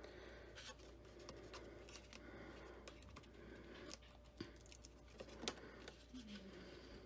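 Faint rustling and a few light clicks and taps of patterned cardstock being folded and its flap pressed down onto score tape.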